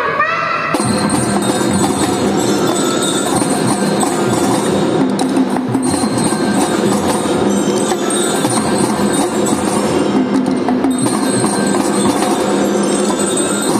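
Children's marching drum band playing: snare drums rattling together with ringing bell-like tones in a continuous piece. It comes in fully just under a second in.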